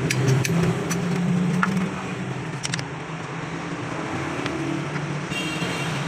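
A motor vehicle engine running steadily, with a few light clicks.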